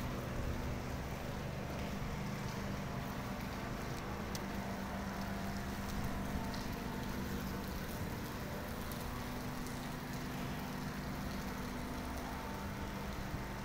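Steady industrial machinery hum of a shipyard dry dock: a constant low drone with a fainter higher tone over a wash of noise, with a few faint clicks.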